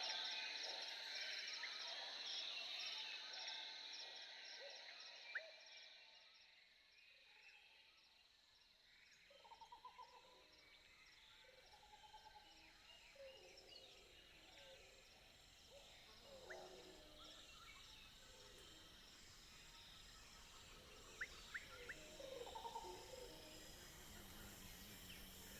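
Faint jungle ambience: a steady high insect drone that fades away over the first several seconds, followed by scattered short, pulsed animal calls and a few sharp chirps.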